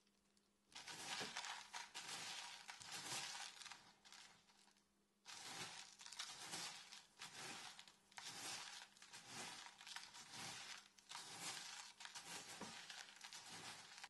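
Coarse bath salts (pink Himalayan, pearl and Dead Sea salt) mixed by hand in a plastic tub: a gritty crunching rustle of crystals grinding against each other. It comes in two long stretches with a brief pause about five seconds in.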